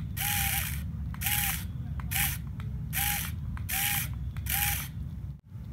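Homemade toy tractor's small motor driving its plastic gear train in six short bursts, roughly one a second. Each burst is a brief whine that rises and falls, with gear chatter, over a steady low rumble.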